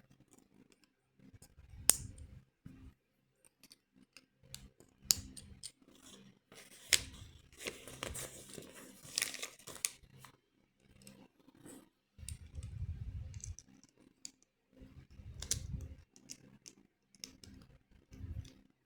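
LEGO bricks being handled and pressed together: scattered sharp plastic clicks, a few seconds of rustling near the middle, and soft low thumps of hands and pieces on the table.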